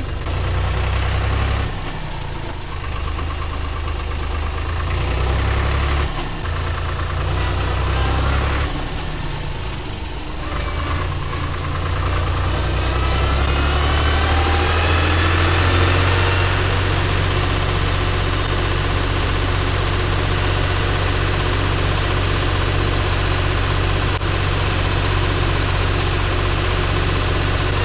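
Fendt 200S tractor's diesel engine heard from inside the cab while driving: the engine note dips and picks up several times over the first ten seconds, climbs as the tractor gathers speed, then runs steadily at road speed.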